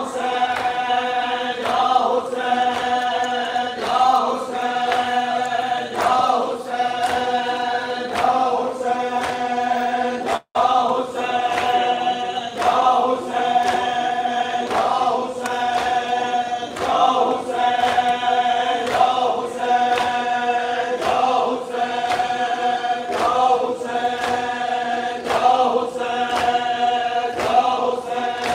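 Large crowd of men chanting a Muharram noha in unison, one short phrase repeating about every two seconds, with sharp rhythmic chest-beating (matam) keeping a steady beat. The sound cuts out for a split second about ten seconds in.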